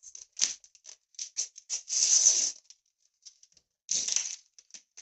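Topps Bundesliga sticker packet wrappers crinkling in the hands and being torn open. A string of short crackles runs through it, with a longer, louder rip about two seconds in and another about four seconds in.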